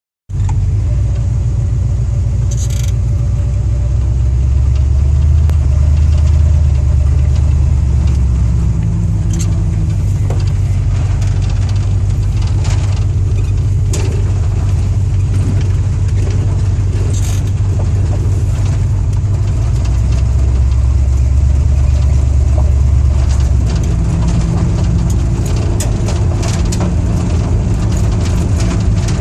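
A 302 V8 engine running, pulling harder twice, about four seconds in and again about twenty seconds in. Under acceleration a slight tapping or knocking comes from the engine, the fault the owner is trying to show.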